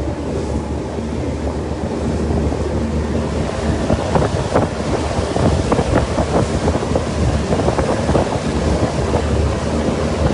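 Wind buffeting the microphone over the steady low drone of a boat's engine and the rush of water, with gusty crackles from about four seconds in.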